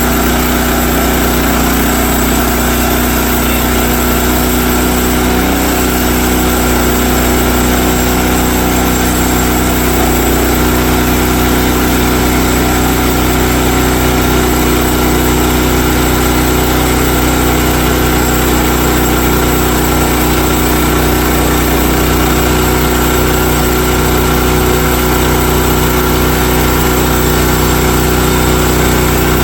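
Engine running steadily at a constant speed, with an even drone that does not change.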